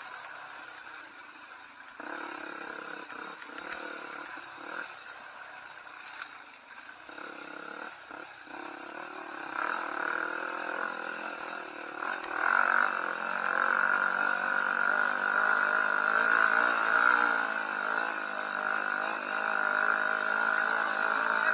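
Trail motorcycle engine running, getting louder about halfway through, with the revs rising and falling.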